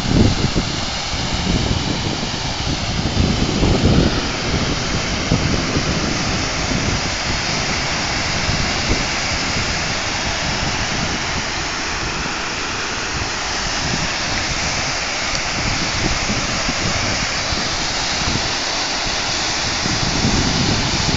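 Rain-fed waterfall rushing steadily. A couple of low rumbling bursts come in the first four seconds.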